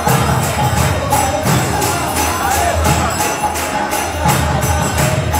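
Devotional kirtan: small hand cymbals (kartals) clash in a steady, even rhythm over a drum beat, with a group of voices chanting together.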